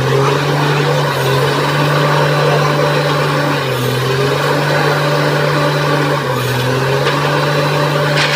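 Truck-mounted borewell drilling rig running under load, its engine hum dipping briefly in pitch and recovering about every two and a half seconds. A sharp knock comes near the end.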